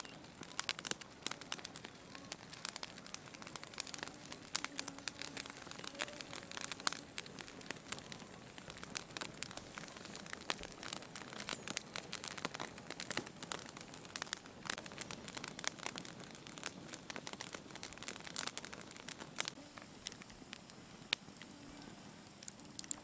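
Wood campfire crackling, with irregular sharp pops and snaps over a light hiss.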